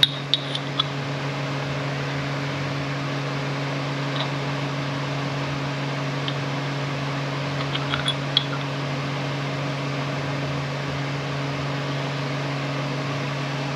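Steady low machine hum of workshop equipment running, with a few light clicks of small metal parts being handled.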